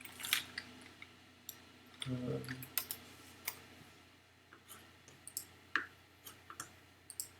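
Computer mouse clicking: a dozen or so light, irregularly spaced clicks.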